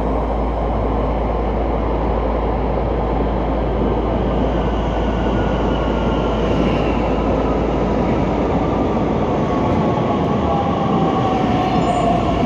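Electric passenger train running into an underground station from the tunnel and along the platform, with a steady rumble of wheels and running gear. In the last few seconds a whine falls in pitch as the train goes by.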